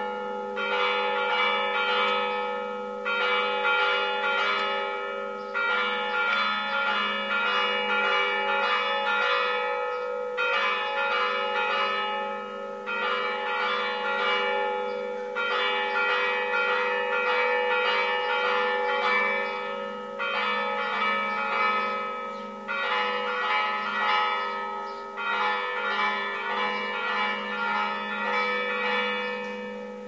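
Greek Orthodox church bells ringing: several bells struck in quick rhythmic clusters, repeating in short phrases about every two and a half seconds, with a low bell tone sounding underneath throughout.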